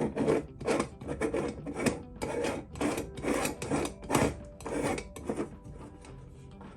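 Stovetop moka pot's upper chamber being screwed tight onto its base, the threads rasping in short twisting strokes about twice a second, stopping about five and a half seconds in.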